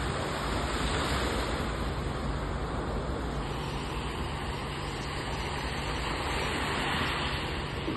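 Small Black Sea waves washing up the beach: a steady rush of surf that swells a little about a second in and again near the end.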